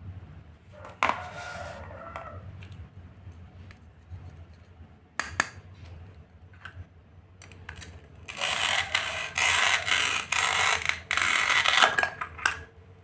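Plastic toy food pieces click as they are handled, then, from about eight seconds in, a long, loud crackling rasp in short runs: the hook-and-loop (Velcro) joint of a plastic toy onion tearing apart as a plastic toy knife cuts it in two.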